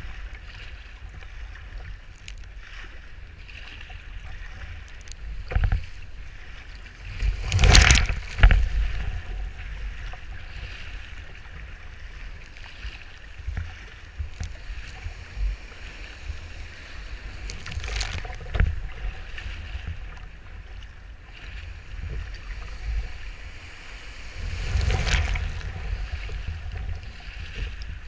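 Wind buffeting the microphone of a deck-mounted camera on a sea kayak in surf, with waves and spray splashing over the kayak several times. The loudest splash comes about eight seconds in, and others come near the middle and the end.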